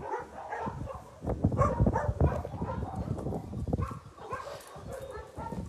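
Dogs giving short barks and whines, one after another in an irregular string.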